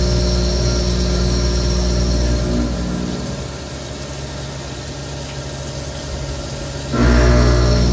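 Haas Minimill HE CNC vertical machining center cutting a part on its rotary 4th axis under flood coolant. A steady machine tone fades about three seconds in, leaving quieter coolant splashing, then cuts back in suddenly near the end.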